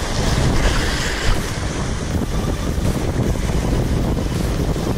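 Wind buffeting the microphone, a steady low rumble over the wash of waves against the jetty.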